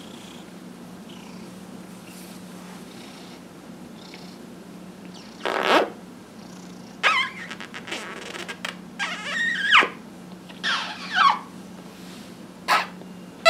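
A domestic cat purring steadily while being massaged. From about halfway through, several short, loud sounds with sliding pitch come in.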